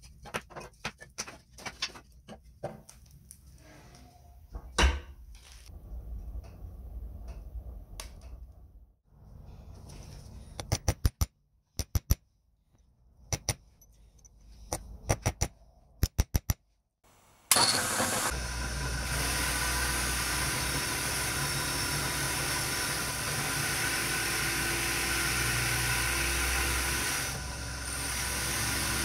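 Firewood being placed in a cast-iron wood stove, with faint knocks and crackling of the fire. Then several groups of sharp metal taps as a steel rod is struck on an anvil. About two-thirds through, a bench grinder starts suddenly and runs steadily as a cast-iron juicer part is ground against its abrasive wheel.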